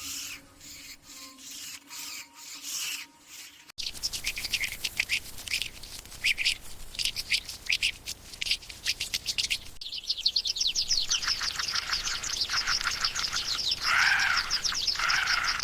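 Birds chirping and calling noisily. About four seconds in, the chirping starts abruptly and grows loud, with many rapid high chirps. Near the end it is joined by some lower, longer calls.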